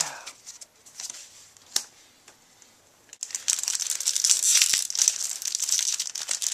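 Foil wrapper of an Extreme Victory Yu-Gi-Oh! booster pack crinkling and tearing as it is opened by hand, starting about three seconds in. Before that, only a few faint taps.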